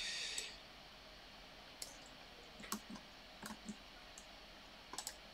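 Faint, irregular clicks of a computer mouse, several of them spread across the middle and end, after a brief hiss at the very start.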